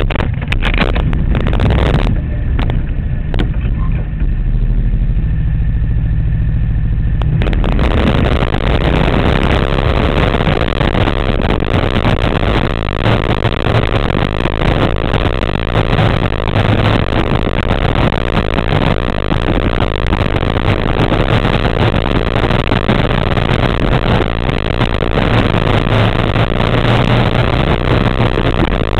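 Open-wheel Malibu Grand Prix race car's engine heard from a camera on the car: it runs steadily at the start line, then about seven seconds in it opens up and pulls away. For the rest of the time it runs hard around the track, rising and falling a little through the turns.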